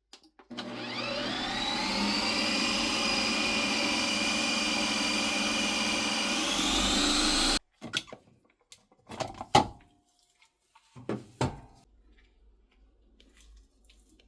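Electric hand blender motor starting up with a rising whine, running steadily while blending the sorbet base, then rising in pitch again just before it is switched off suddenly about seven and a half seconds in. A few short knocks and clicks follow.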